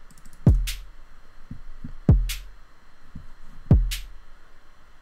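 Electronic kick drum from a Maschine MK3 kit, triggered by a looping MIDI clip. It hits three times about 1.6 seconds apart, each hit a deep thump that drops in pitch and is followed a moment later by a short hissy hit.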